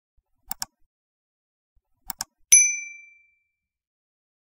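Two quick double-click sound effects, like a mouse button, then a single bright bell ding that rings out and fades within a second. These are the subscribe-button click and notification-bell sounds of an animated subscribe overlay.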